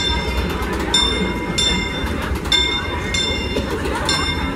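Disneyland Railroad steam locomotive ringing its bell in steady strokes, a little faster than once a second, as the train moves through the station, over the low rumble of the train running and crowd chatter.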